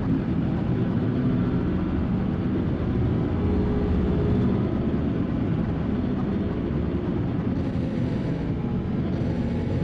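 Harsh noise drone: an ambient track distorted through a chain of guitar effects pedals and a looper, a dense, steady low rumble with faint held tones above it.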